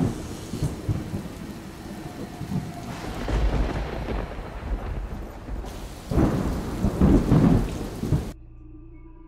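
Rain with rolls of thunder: one rumble about three seconds in and a louder one a little past six seconds, then the storm cuts off suddenly near the end.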